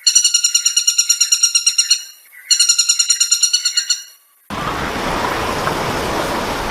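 A high-pitched, rapidly pulsing trilled call, given twice for about two seconds each, then a steady rushing noise from about four and a half seconds in.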